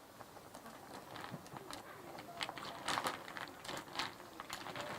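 A series of irregular light clicks and rattles, coming thicker in the second half.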